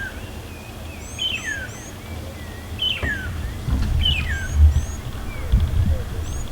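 Wild birds calling: one bird repeats a whistled call that slides down in pitch, three times about a second and a half apart, with higher short chirps from another bird. A low rumble comes in from about halfway through.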